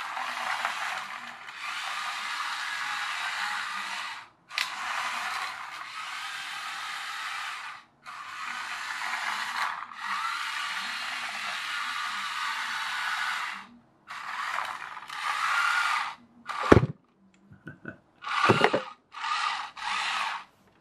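Toy RC truck's small brushed motor and plastic gearbox whirring as it is driven across the floor in runs of a few seconds with brief stops between, under an added brushed ESC. Near the end the runs get shorter, with two loud knocks.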